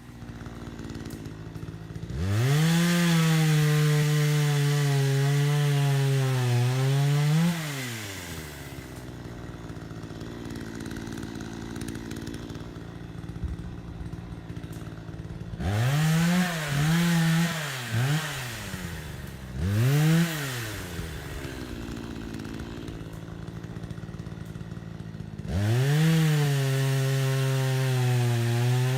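Gas chainsaw bucking firewood. The engine goes from idle up to full revs for about five seconds of cutting, drops back to idle, is blipped a few times, then goes up to full revs again near the end. The pitch sags a little while the chain is held in the cut.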